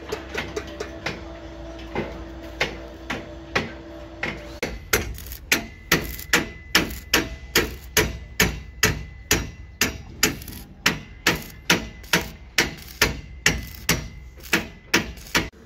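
Hammer blows on steel formwork, a steady run of about two to three metallic, ringing strikes a second. The strikes are lighter at first and become louder and more even about five seconds in.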